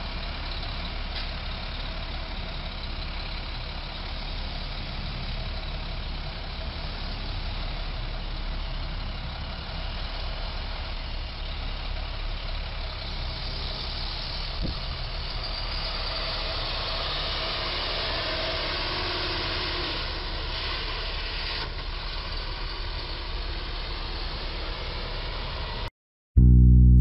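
Street traffic: truck and car engines idling and running at an intersection, a steady engine noise that swells for a while in the middle as vehicles move through. Near the end it cuts off to a moment of silence and loud music begins.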